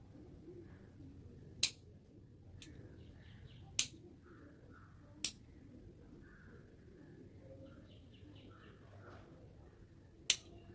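Pruning scissors snipping twigs off a Murraya exotica: four sharp single snips at uneven intervals, the last near the end.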